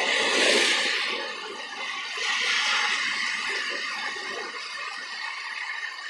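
Rain falling, a steady hiss that swells about half a second in and again around two and a half seconds, then eases slightly.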